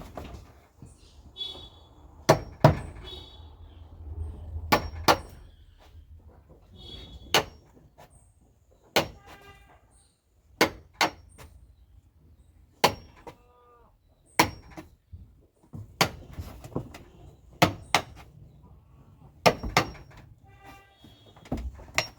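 Hammer blows on wood, sharp single and paired strikes coming irregularly every second or two, from driving a chisel to widen the gaps between pen floorboards. Goats bleat faintly between the strikes.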